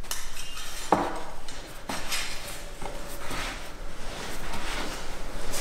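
Dough being kneaded by hand on a wooden board, with a few dull knocks roughly once a second as it is pushed and turned, and light clinks of a knife and fork against a plate.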